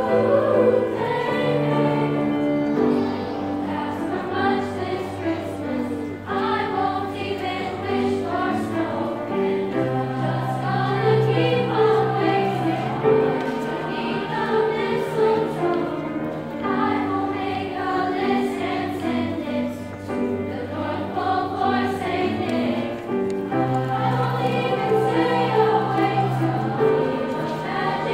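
Youth choir of mixed girls' and boys' voices singing a pop Christmas song in unison and parts, over an instrumental accompaniment with sustained low bass notes.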